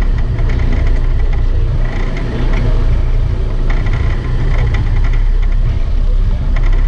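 Sport-fishing boat's engines running with a low, steady rumble.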